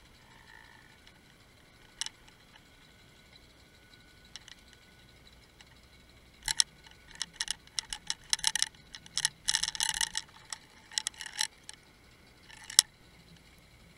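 Sharp underwater clicks and taps, one early and then rapid irregular clusters through the second half: bucktail jig heads knocking against a bed of mussel shells on the bottom.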